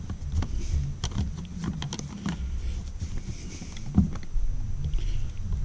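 Hand screwdriver turning a cover-plate screw into an electrical outlet: irregular small clicks and scrapes over a steady low rumble.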